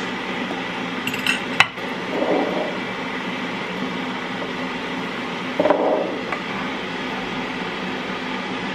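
Mugs and crockery clinking and knocking as tea is made, with a sharp clink about a second and a half in and a couple of duller rattles later, over a steady hiss.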